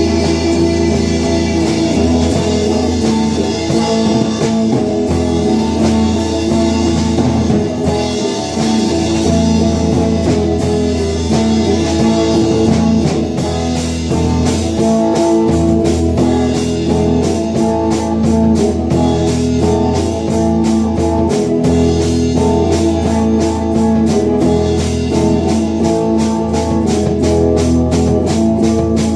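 Electric guitars playing an instrumental rock passage over a steady drum beat, at rehearsal volume. A fast, regular ticking beat comes to the fore about halfway through.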